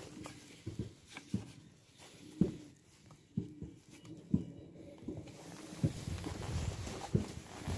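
Footsteps of a person walking, dull thuds about twice a second.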